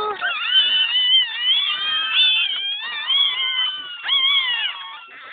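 Several puppies crying at once, high-pitched whining squeals that rise and fall and overlap one another.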